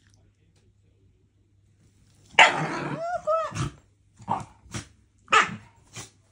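Shiba Inu growling and barking: quiet at first, then about two seconds in a longer outburst with a rising-and-falling pitch, followed by four short barks. The dog is objecting to being pestered.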